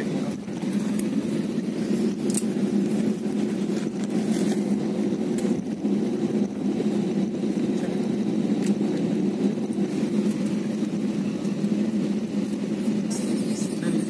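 Airliner engines heard from inside the cabin: a steady drone with a low, even hum as the plane rolls along the runway.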